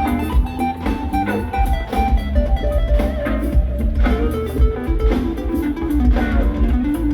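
A rock band playing live: a guitar picks out a melodic line of quick notes over heavy bass and steady drums.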